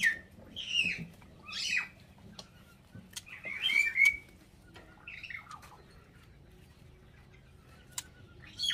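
White-rumped shamas calling: a series of short, harsh calls, each sliding downward, about five in the first half, the loudest around four seconds in. A few light clicks follow near the end.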